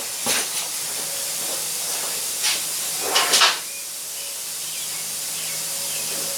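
Steady hiss of compressed air leaking from worn air compressor hoses, with a few short clatters, the loudest about three seconds in.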